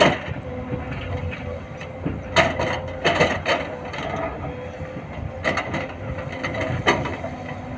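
Sany SY210 hydraulic excavator working: a steady running hum, with bursts of metallic clanking and rattling about two and a half, three and a half, five and a half, and seven seconds in.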